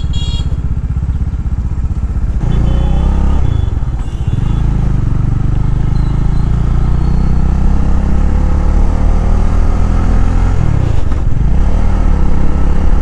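Motorcycle engine running, first ticking over at a stop and then pulling away, its note picking up about two and a half seconds in and dipping briefly and rising again near the end, as at a gear change. A few short high beeps sound near the start and around three to four seconds in.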